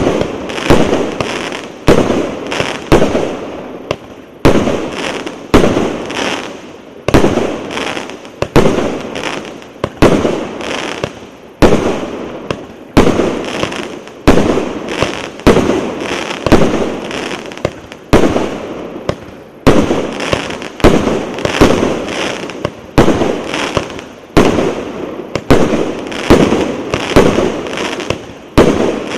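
A 'Big Ben' 238-shot firework battery (cake) firing shot after shot. A launch comes about every second, each a sharp bang that dies away before the next.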